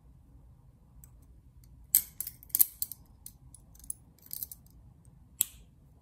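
Titanium mini butterfly knife (balisong) being flipped closed in the hand. The titanium handles swing on their pivots and strike each other and the blade's tang pins, giving a run of sharp metallic clicks and clacks, densest in the middle. One last sharp click comes near the end as the handles close together.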